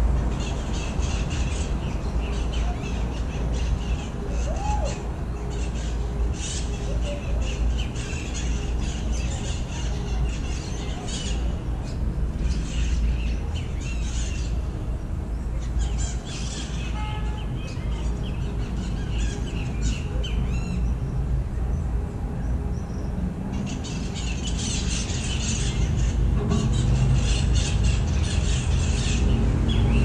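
A flock of parrots calling, with dense runs of short, shrill squawks that thin out in the middle and pick up again near the end, over a low steady rumble.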